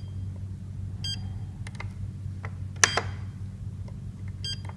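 Key beeps from an Avionic 10-channel RC transmitter: two short electronic beeps, about a second in and near the end, as its menu roller is scrolled, with small clicks and one louder click near the middle. A low steady hum runs underneath.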